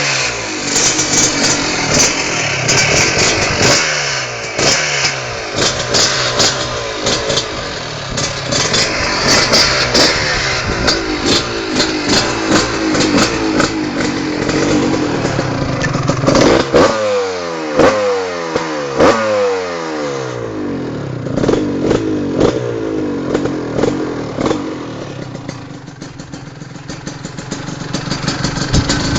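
Husqvarna 125 SM two-stroke engine through an HGS aftermarket exhaust, revved again and again in sharp blips, the pitch climbing and dropping back each time. Several harder revs come in the middle, then it settles into a lower, quieter running with small blips toward the end.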